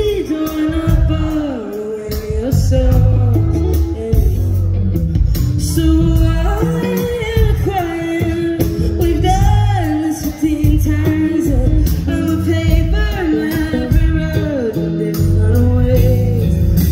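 Live band playing a song, with a woman singing lead over electric guitar, bass and drums, heard from the crowd.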